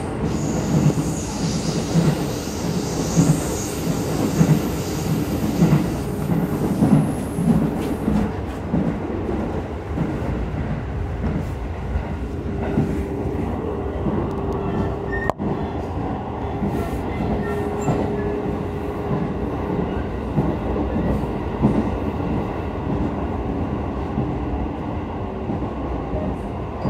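Electric commuter train running at speed, heard from inside the carriage: a steady rumble of wheels on the rails with a rhythmic clatter, and a faint steady hum that comes and goes in the middle.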